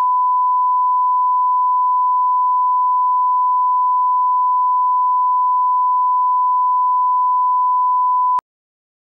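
Steady reference test tone of the kind played with broadcast colour bars: one pure, unwavering beep at a single pitch that cuts off sharply near the end.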